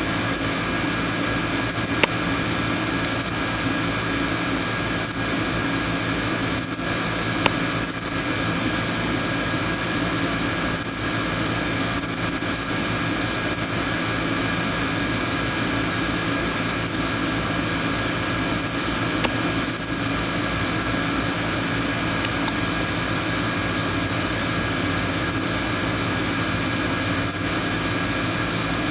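Steady machine hum with several fixed tones, with brief high chirps from northern cardinals every second or two.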